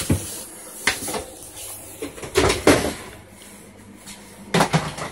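Plastic food containers being handled: a handful of separate sharp knocks and clatters, the loudest about two and a half seconds in, with a quieter stretch before a last pair of knocks near the end.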